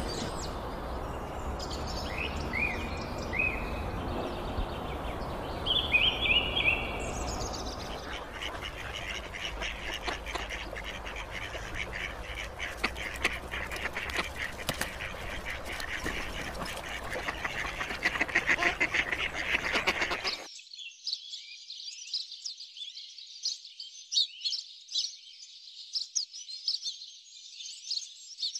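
Ducks quacking over a steady noisy background. About twenty seconds in, the background cuts off suddenly and only high, rapid chirping of small birds remains.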